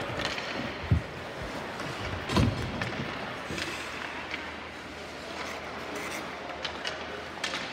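Ice rink ambience: hockey skate blades scraping and hissing across the ice, with a few sharp knocks around one second in, about two and a half seconds in, and near the end.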